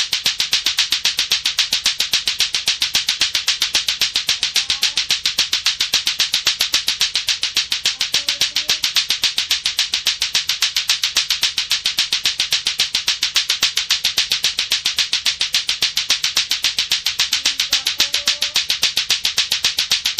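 Latto-latto clacker toy played continuously: its two hard plastic balls knock together in a rapid, perfectly even clacking rhythm.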